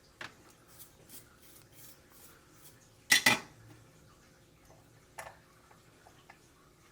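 Light metallic clinks and knocks of small tools and parts handled on a workbench: a few faint ticks, a sharp double knock about three seconds in, and another knock about five seconds in.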